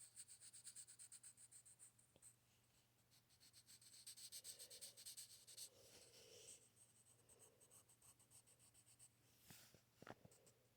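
Faint, rapid scratchy strokes of drawing on a page, coming in runs with a short pause about two seconds in, and a couple of light knocks near the end.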